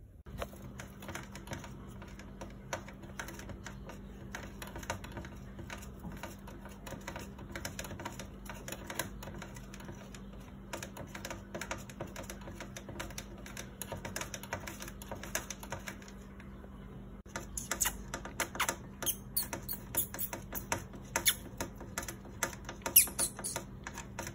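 Rapid, irregular clicking and scratching on a clear plastic hamster tube, with the hamster and fingers on the plastic. The clicks get louder and sharper about two-thirds of the way through. A steady low hum runs underneath.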